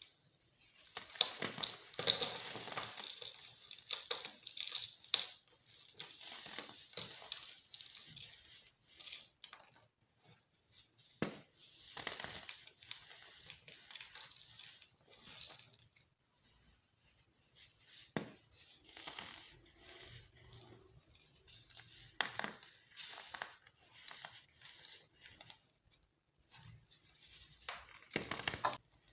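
Dyed baking soda being crushed, giving an irregular crunching and crackling with occasional sharp cracks, loudest in the first few seconds.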